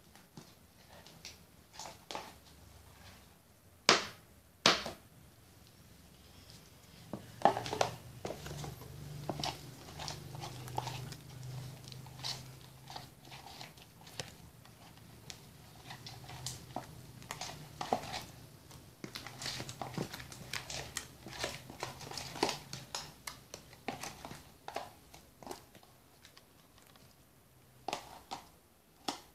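Hands squishing and poking a soft glue-based jelly slime, giving irregular wet clicks, squelches and small pops, with two sharper clicks about four seconds in.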